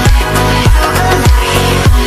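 Electronic dance music with a heavy, pitch-dropping kick drum about every 0.6 seconds under sustained synth chords.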